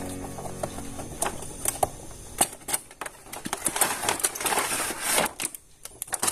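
Plastic toy parts and packaging being handled: quick irregular plastic clicks and snaps, with a denser stretch of crinkling rustle about four to five seconds in.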